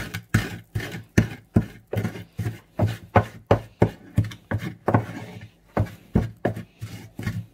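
Pestle pounding pepper and sea salt in a wooden mortar: a steady run of knocks, nearly three strokes a second, with a short break a little past five seconds in.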